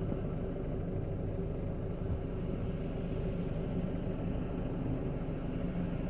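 Steady low rumble inside the cabin of a Mk5 Volkswagen Golf GTI.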